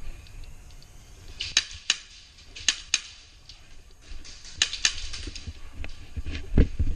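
Airsoft guns firing single shots: sharp snaps, mostly in quick pairs, about six in all. A dull thump near the end.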